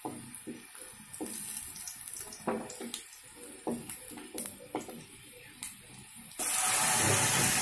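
Wooden spatula scraping and tapping in an aluminium karai while sliced onions, chillies and cumin fry gently in oil. About six seconds in, a sudden loud sizzling rush starts as the wet spinach-and-dal mixture is poured into the hot tempering oil.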